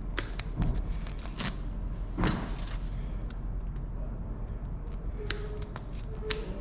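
Hand work on a pickup's light wiring: scattered sharp clicks and knocks of tools, zip ties and the wiring loom, with one louder rasping scrape about two seconds in.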